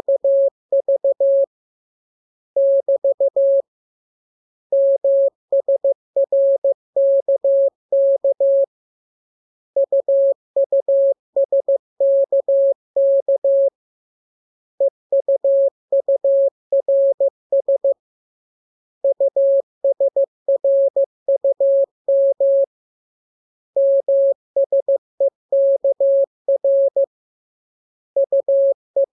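Morse code sent as a single steady-pitched tone, keyed on and off in quick dots and dashes. The characters come in groups of several, with pauses of about a second between groups.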